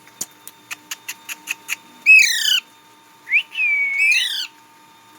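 Indian ringneck parrot calling: a short, harsh, descending screech about two seconds in, then a longer whistled call that dips and rises again. A quick run of sharp clicks comes before the first call.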